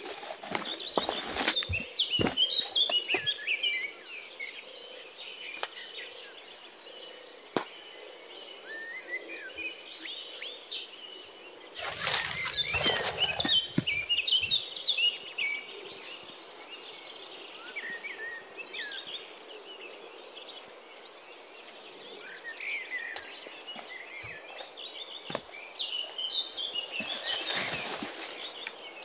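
Small birds chirping over and over in dense tropical bush, over a steady high insect tone. Three times, near the start, in the middle and near the end, there is a spell of leaves and stems rustling as someone pushes through the undergrowth.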